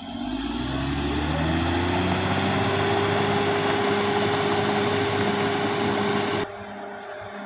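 CAT D6R XL bulldozer's diesel engine revving up, its pitch rising over about two seconds and then holding steady at high revs. Near the end the sound drops abruptly to a quieter engine hum.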